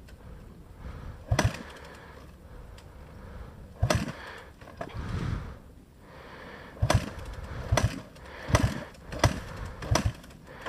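Kawasaki KLX300R single-cylinder four-stroke dirt bike being kick-started without firing: a string of sharp knocks, irregular at first and coming about once a second in the second half, with no engine catching.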